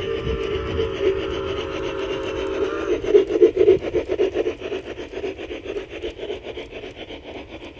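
G-scale model train running past on brass track: a steady whine from the locomotive's motor and gears, then, about three seconds in, a rapid, even clicking and rattling as the coach wheels roll by.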